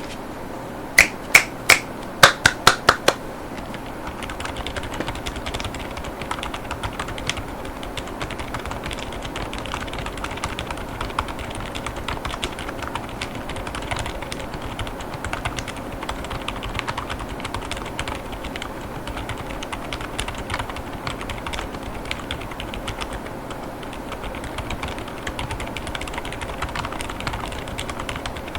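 Mechanical keyboard with GamaKay Pegasus silent tactile switches and polycarbonate Cherry-profile keycaps, typed on fast and continuously. About seven loud, sharp clicks come in quick succession in the first few seconds, before the steady run of typing starts.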